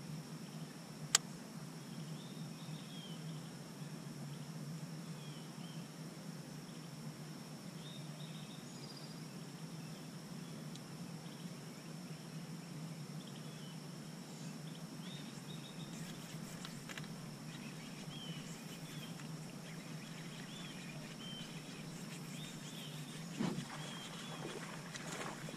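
Quiet lakeside morning ambience: a steady high insect drone over a low steady hum, with scattered faint bird chirps. A single sharp click sounds about a second in, and a couple of soft knocks come near the end.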